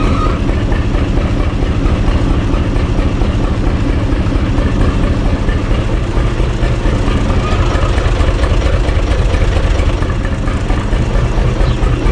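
UTB Universal U445 tractor's four-cylinder diesel engine idling steadily.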